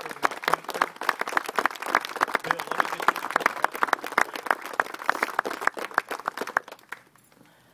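A small crowd applauding: many hands clapping in a dense, uneven patter that dies away about seven seconds in.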